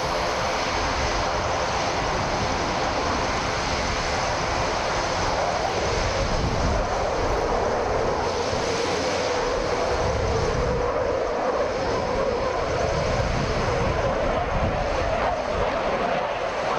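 Dassault Rafale fighter jet in flight, its twin Snecma M88 turbofans giving a steady, loud jet roar. A tone within the roar dips in pitch around the middle.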